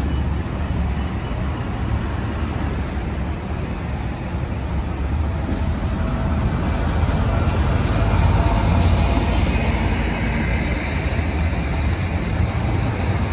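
Diesel coach buses driving past close by, a steady low engine rumble over traffic noise that grows louder for a few seconds in the middle as one passes near.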